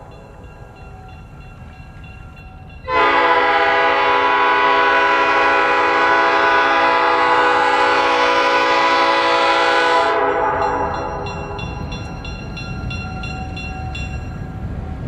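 EMD GP7 diesel locomotive's air horn blowing one long, loud blast that starts suddenly about three seconds in and holds for about seven seconds before fading. After it the locomotive's engine rumble grows louder as it nears, with a grade-crossing bell ringing steadily.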